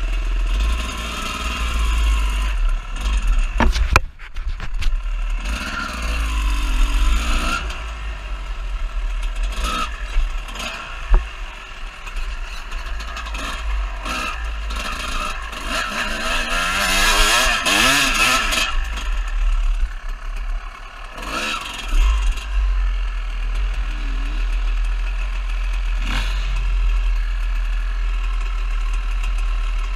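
Dirt bike engine revving up and down as it is ridden over rough ground, with a few sharp knocks and a steady low rumble of wind on the microphone.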